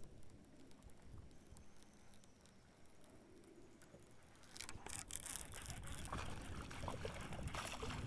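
Faint water lapping and splashing, louder and busier from about halfway through, with many small pattering clicks.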